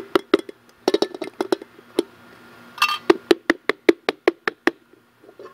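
Knocks on the bottom of an upturned metal baking pot, rapped to release the baked cornbread inside. Scattered sharp knocks at first, then an even run of about five knocks a second that stops shortly before the end.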